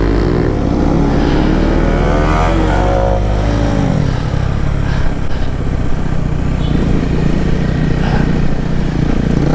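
Motorcycle engine running under way: its pitch climbs over the first few seconds, drops about four seconds in, then holds steadier.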